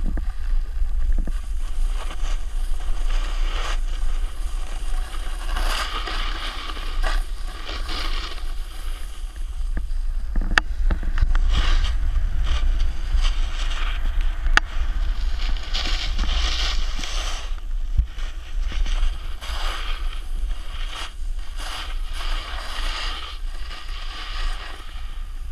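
Wind buffeting a pole-mounted GoPro Hero 3's microphone with a steady low rumble, while edges slide and scrape over snow in hissing surges that swell and fade every few seconds through the turns. A few sharp clicks stand out over the top.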